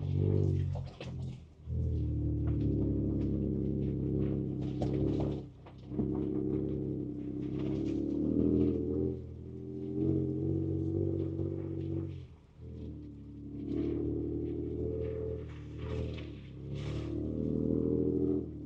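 Ford Ranger Raptor's twin-turbo V6 engine heard from inside the cab, its drone swelling and dropping with the throttle on a rough trail, briefly easing off three times. Scattered knocks and rattles from the truck going over bumps.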